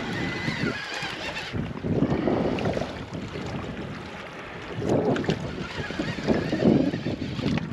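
Wind buffeting the microphone over water slapping against a small boat's hull, in uneven gusts.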